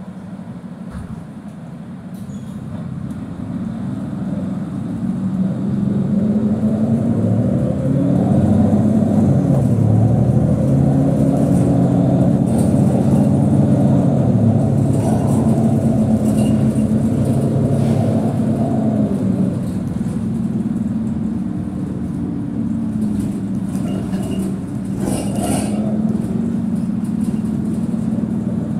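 Mercedes-Benz Citaro C2 city bus engine heard from inside the bus, getting louder as it pulls away and accelerates. Its note rises and drops back several times as it changes up through the gears, with a few brief rattles near the end.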